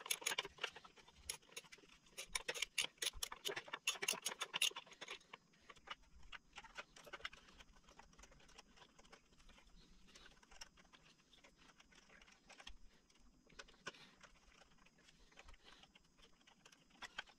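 A ratcheting hand tool clicking in quick runs for the first five seconds while turning the lock set's torx screws, then only sparse faint clicks of tool handling.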